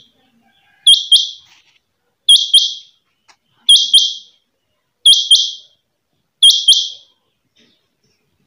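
A caged quail (batair) calling: five loud two-note phrases, each repeated about every second and a half.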